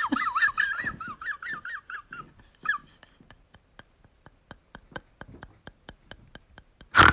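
A kitten giving a quick run of thin, wavering, squeaky mews, then a string of faint regular clicks, about three or four a second. A short loud burst of noise comes near the end.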